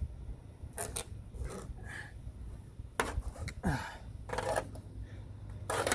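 Screen spline being pulled out of a lanai screen frame's channel with needle-nose pliers: a series of short scraping, rubbing strokes.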